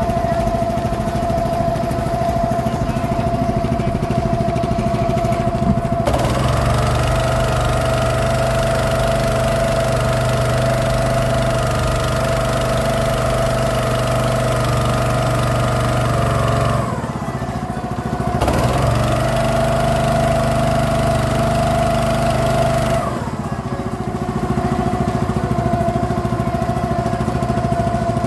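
Motorboat engine running steadily. It speeds up about six seconds in, eases off briefly a little past halfway, picks up again, then drops back to a lower speed near the end.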